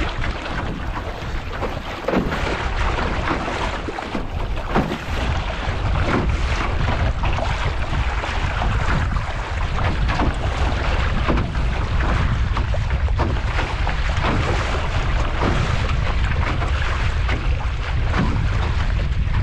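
Wind buffeting the microphone over water rushing and slapping against the aluminum hull of a Grumman 17 canoe under sail, with frequent short splashes as it cuts through choppy waves.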